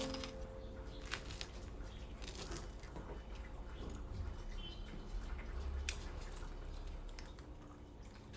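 Faint handling noises in a small room: light rustling and crinkling with a few sharp clicks, the clearest about a second in and near six seconds in, over a low steady hum. The last notes of background music fade out at the start.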